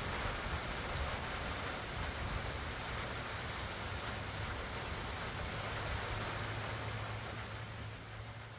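Steady rain falling on the pecan trees and grass of an orchard, an even hiss that fades out near the end.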